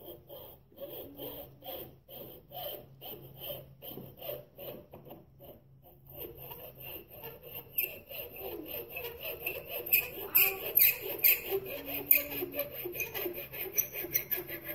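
Hacksaw cutting through a wooden dowel with quick back-and-forth strokes, about three a second, trimming it to length. The strokes get faster and louder in the second half.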